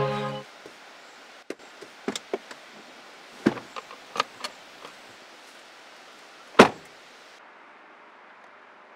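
A run of short clicks and knocks from a pickup cab's interior latches, lids and seat fittings being worked by hand, with one louder clunk about two-thirds of the way in.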